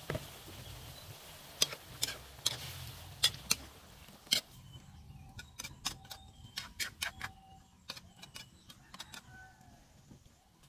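Metal ladle clinking and scraping against a steel wok: a run of sharp clicks, some leaving a brief metallic ring.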